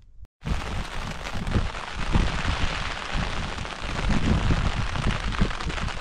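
Strong wind gusting and buffeting the microphone: an irregular low rumble over a steady hiss, starting abruptly a moment in.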